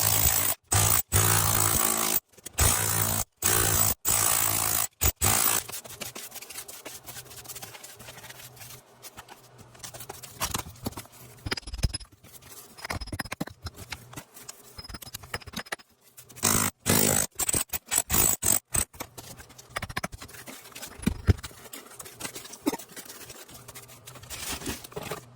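Power tools breaking up and cutting a concrete slab, heard as short clips cut together: loud stretches in the first five seconds and again about two-thirds of the way in, with quieter, irregular work noise between.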